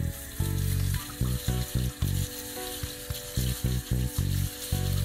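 Tap water running onto rice in a stainless mesh strainer, a steady hiss, as a hand stirs and rubs the grains to rinse them. Background music with a pulsing bass line plays over it and is the loudest part.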